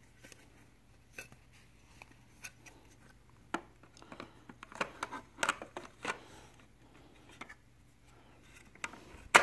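Light plastic clicks and taps as a small plastic dust cover is worked onto the side of a CPAP machine's housing, with one sharper snap near the end as it pops into place.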